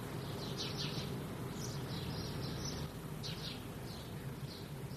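Small birds chirping in short, irregular bursts over a steady low background hum.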